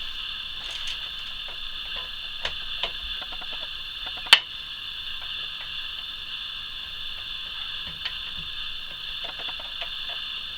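Small clicks and ratcheting ticks of a screwdriver driving screws into a plastic printer base, with one sharper click about four seconds in, over a steady hiss.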